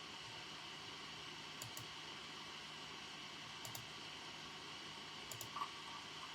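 A few scattered computer keyboard keystrokes, mostly in pairs about two seconds apart, over a steady soft hiss of background ambience.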